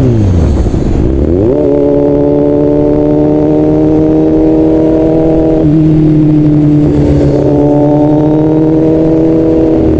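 Kawasaki Z800 inline-four engine running loud under the rider. Its note drops in the first second, climbs back, then holds steady at cruising revs.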